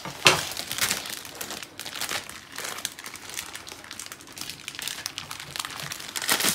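Plastic wrapper of a pack of spring roll pastry crinkling irregularly as it is cut open and the pastry sheets are slid out by gloved hands, loudest just after the start and again near the end.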